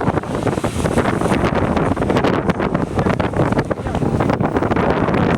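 Strong wind buffeting the microphone: a loud, gusty rush full of rapid crackling pops.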